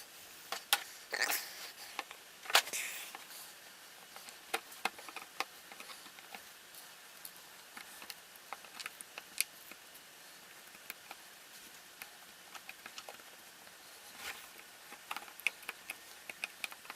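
Sparse small clicks and taps of tools and parts handled on an opened iPhone 6 as the new screen's ribbon-cable connectors are pressed into place, with a few brief soft rustles in the first few seconds.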